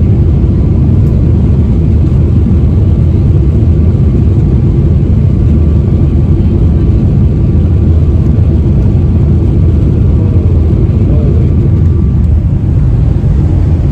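Steady low roar of a jet airliner in climb, heard from inside the passenger cabin, with a faint steady whine over it.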